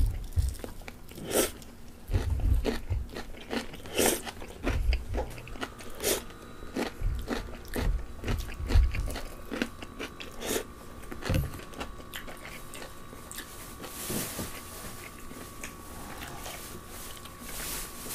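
Close-up eating sounds: repeated crisp crunching bites and chewing of pickled radish cubes and fried chicken, thinning out after about twelve seconds. A faint steady hum runs underneath from about five seconds in.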